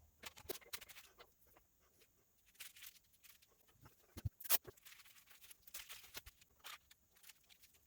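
Faint, irregular clicks and light taps of small-scale handwork at a bench, with one sharper click about four and a half seconds in.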